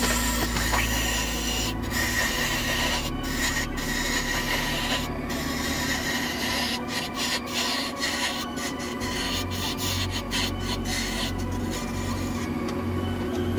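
Wood lathe running with a steady motor hum while a hand-held turning chisel scrapes and cuts the spinning wood, the cutting noise broken by many short pauses as the tool is lifted and set back.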